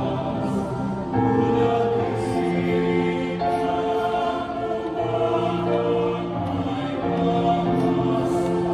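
Men's choir singing in harmony, holding long chords that change every second or so.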